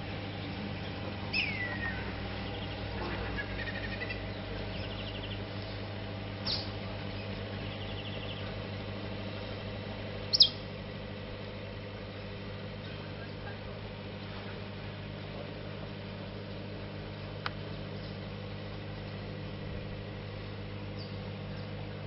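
A paddle steamer's engine running with a steady low drone, while birds give short chirps that fall in pitch every few seconds, the loudest about ten seconds in.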